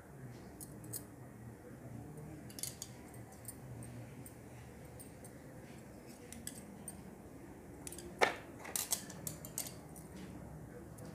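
Hands working thread on cloth: light handling noise with scattered small clicks, and a short run of sharper clicks about eight to nine and a half seconds in, over a low steady hum.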